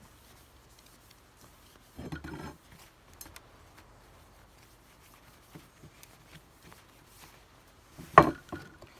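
A cloth rubbing along a steel muzzleloader rifle barrel during browning, with a brief scuffing burst about two seconds in and scattered light ticks. A sharp knock near the end is the loudest sound.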